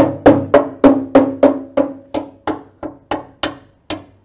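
A pry bar whacking the steel chassis under a 2CV-based Lomax kit car, about three hard ringing strikes a second, to test the metal for rust. The owner reads the hits as sound, solid metal that needs no welding.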